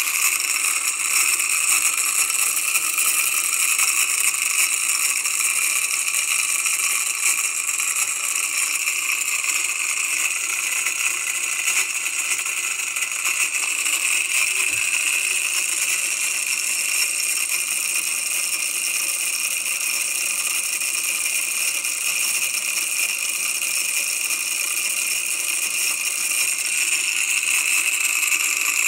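Homemade simple DC motor running: a wire coil spinning fast in two bent-wire supports beside ring magnets, its shaft rattling in the supports in a steady, high-pitched rattling buzz.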